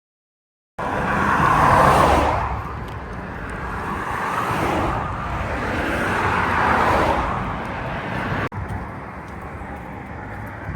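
Road traffic: cars passing one after another on a highway, each swelling up and fading away, three passes in a row. A sudden cut follows, then a steadier, quieter traffic noise.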